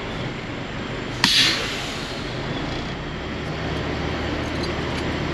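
Diesel truck running, heard as a steady rumble and road or cab noise, with one sudden sharp clack about a second in.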